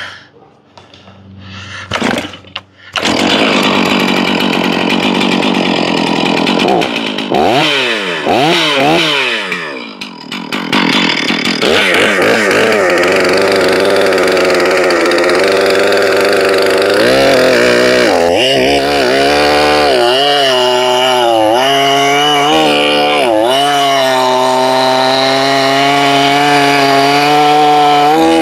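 Stihl MS461 75 cc two-stroke chainsaw with a skip-tooth chain. It starts up about three seconds in and is revved up and down. Then it runs at full throttle, noodling a log along the grain, the engine note dipping and recovering as the chain bites in without bogging.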